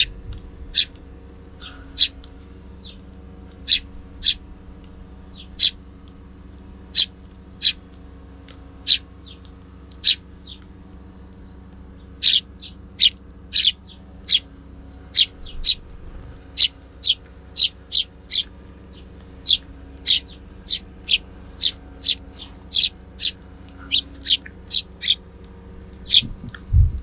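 Sparrows chirping: short, sharp single chirps, a few seconds apart at first and coming more quickly, about two a second, in the second half. A faint steady hum lies underneath.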